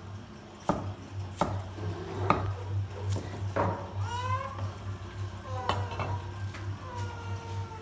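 A cleaver chopping vegetables on a thick round wooden chopping block: sharp single knocks, one every second or so, over a steady low hum.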